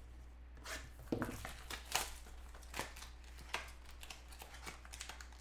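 Trading-card pack being opened and handled by hand: scattered crinkles, rustles and short clicks of the wrapping and cards, about one every second.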